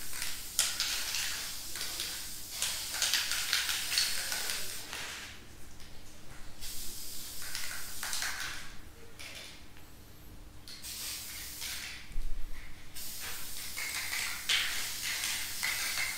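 Dupli-Color aerosol spray-paint can spraying paint in several long hissing passes with short pauses between them, a quick coat going onto plastic trim. A brief low thump about three-quarters of the way through.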